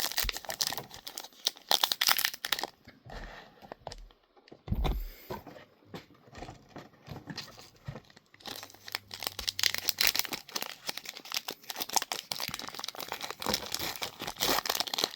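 Foil booster pack wrappers being torn open and crinkled, in dense crackly bursts, busiest at the start and again in the second half, with a brief dull thump about five seconds in.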